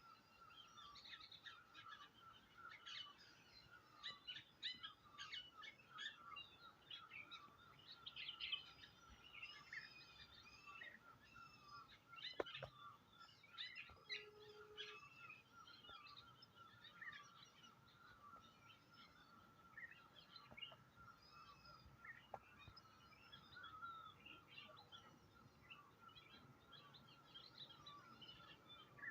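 Faint outdoor chorus of many small birds chirping and trilling, over a steady high continuous tone. A single sharp click sounds about twelve seconds in.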